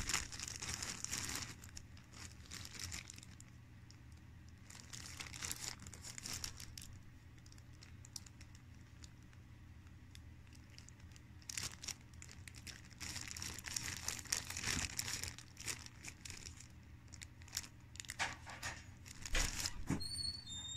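Clear plastic bag of wooden mushroom plug-spawn dowels crinkling as it is handled and turned over, with the plugs shifting inside. The rustling is busiest in the first couple of seconds and again through the last third, and quieter in between.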